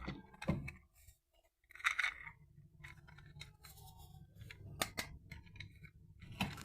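Toy packaging being handled: a short crinkling rustle about two seconds in, then a sharp click near the middle and a few more clicks near the end, over a low steady hum.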